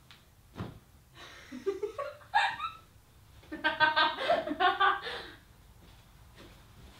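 A young man's wordless vocal outbursts in two short bursts, laugh-like.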